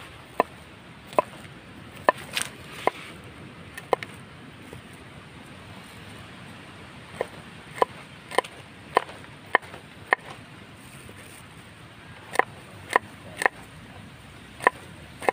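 A knife chopping garlic cloves on a wooden cutting board. Single sharp knocks come about twice a second in three runs, with short pauses between them.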